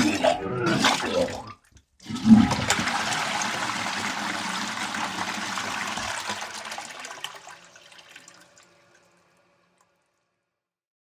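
A person retching, a short voiced heave that breaks off, then a toilet flushing: a sudden rush of water that runs for about six seconds and fades out.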